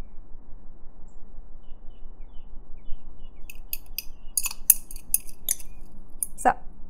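A thin metal utensil scraping and clicking against a glass measuring jug to get the last of the melted deodorant mixture out: a run of short, sharp scrapes in the second half, the loudest near the end.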